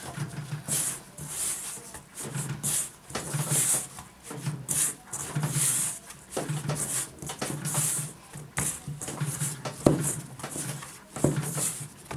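Dough being kneaded by hand in an enamel bowl: rhythmic pressing and rubbing strokes about once a second, with a couple of knocks against the bowl near the end.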